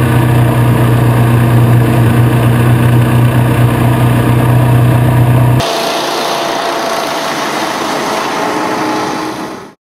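Personal hovercraft running steadily at close range, a loud engine and fan sound with a strong low hum. About halfway through it cuts to a quieter, thinner sound of the craft passing at a distance, which fades out near the end.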